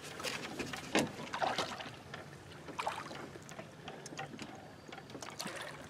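Faint water lapping and trickling against the side of an aluminum boat, with a few light knocks, the loudest about a second in.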